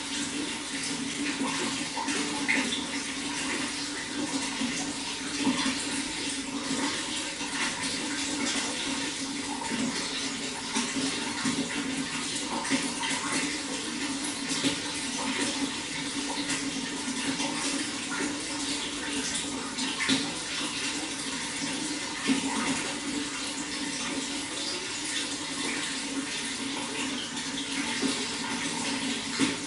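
Running water: a steady rush with many small, irregular splashes and gurgles.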